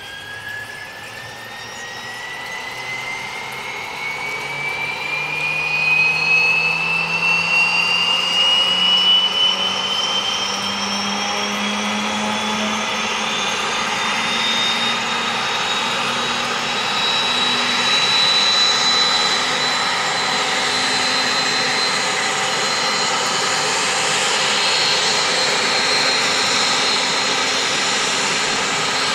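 Aérospatiale Alouette III helicopter's turboshaft engine spooling up on the ground: a turbine whine rises steadily in pitch for about fourteen seconds, then holds, growing louder over the first several seconds. A lower hum from the rotor rises along with it.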